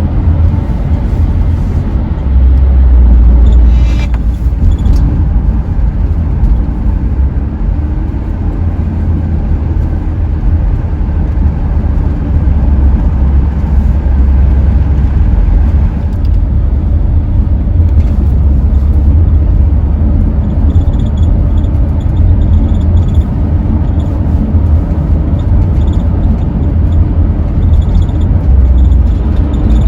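Steady low road rumble and engine noise of a Dodge Grand Caravan minivan on the move.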